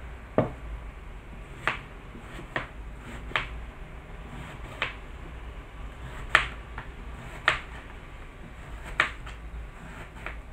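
A kitchen knife slicing an onion and knocking on the cutting board as each slice goes through: about nine sharp knocks at an uneven pace, a second or so apart.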